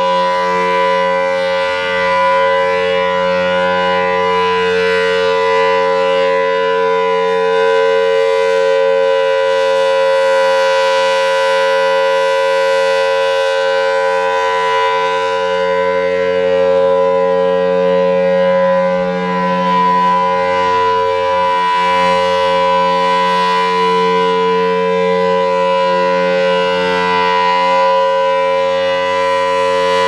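Federal Signal Thunderbolt 1000T outdoor warning siren sounding a loud, steady tone during a test, holding its pitch throughout.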